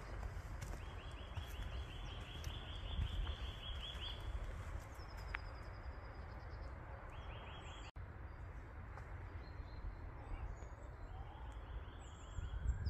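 Spring woodland sound: a small songbird singing dry trills of rapid, evenly spaced notes, the longest lasting about three seconds, over a steady low rumble. A faint rising tone comes in near the end.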